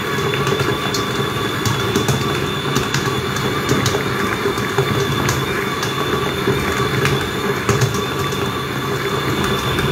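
Electric stand mixer kneading a wet bread dough in its stainless steel bowl: a steady motor whine over a mechanical rumble, with occasional clicks.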